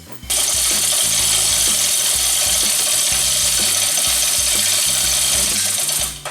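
Impact wrench running in one continuous burst of about six seconds, starting just after the beginning and cutting off near the end, undoing a bolt.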